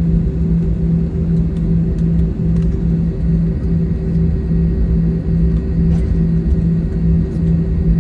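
Airliner cabin noise while taxiing after landing: a steady low rumble of the engines and air system with a constant hum, and a few faint light clicks or rattles.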